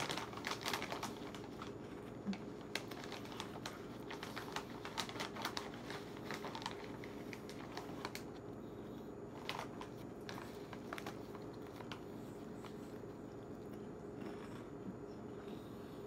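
A crinkly snack-chip bag rustling as a hand digs into it, with crunching of spicy onion-ring chips being eaten. The crackles come thick in the first half and thin out later, over a steady low hum.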